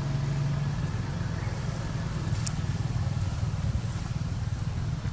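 Steady low engine rumble, like a motor vehicle running close by, with one faint click about two and a half seconds in.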